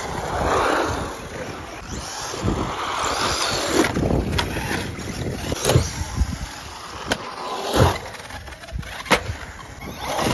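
HPI Savage XS Flux brushless RC monster truck running fast over asphalt, with a series of sharp knocks as its chassis and wheels hit the ground while it jumps and tumbles.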